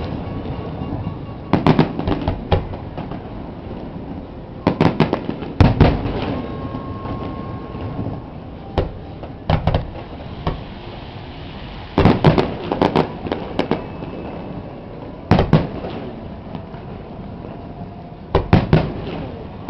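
Fireworks bursting overhead: booms come in clusters of several shots every few seconds, with crackling among them.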